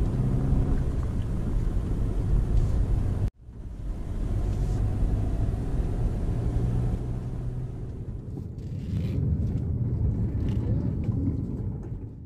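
Steady low road and engine rumble heard inside the cabin of a Maruti Suzuki Ignis on the move. It breaks off for an instant about three seconds in, then carries on.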